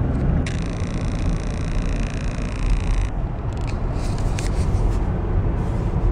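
Car driving, heard from inside the cabin: a steady low rumble of engine and road noise. A high, steady squeal joins it from about half a second in and stops abruptly about three seconds in.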